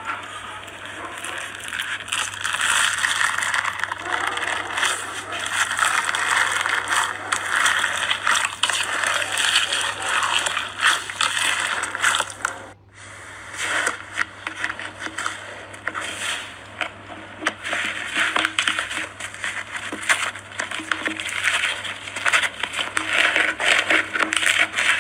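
Slime being squeezed and kneaded by hand, a dense run of small sticky crackles and clicks with a brief pause about halfway through.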